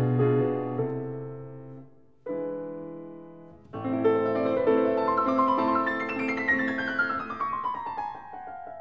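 Background piano music: held chords that fade away, then new chords and a falling run of notes in the second half.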